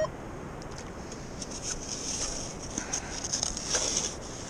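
Gritty scraping and crunching of wet beach sand and small stones being dug through by hand with a small tool, in a string of short scrapes between about one and a half and four seconds in.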